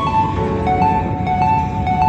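Background music: a melody of short, clear notes stepping up and down, over a steady low rumble.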